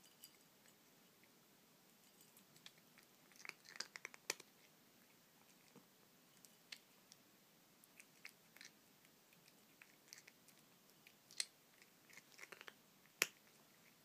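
Cat crunching dry kibble, scattered sharp crunches that come in clusters a few seconds in and again near the end.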